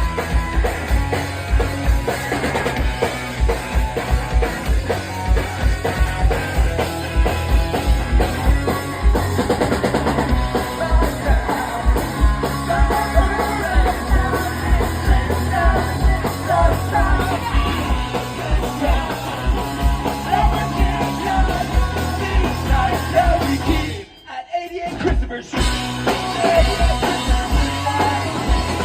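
Rock band playing live, with electric guitars and a drum kit keeping a steady fast beat. About three-quarters of the way through the band stops dead for about a second and a half, then comes back in.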